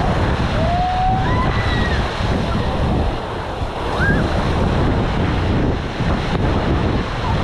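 Small surf washing onto the beach under heavy wind buffeting the microphone, a steady rushing noise. A few brief high gliding calls rise above it about a second in and again about four seconds in.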